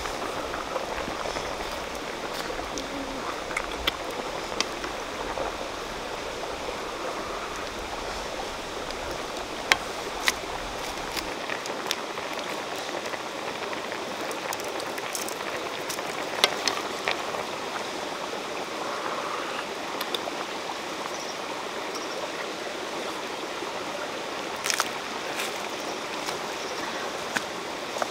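A wok of fish soup boiling hard and bubbling, with a stream running steadily behind it and scattered sharp clicks.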